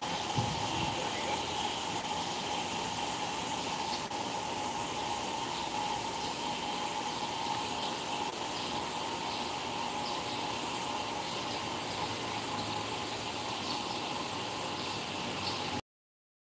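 Steady outdoor background hiss with a faint constant hum and a few short bird chirps near the end. The sound drops out suddenly just before the end.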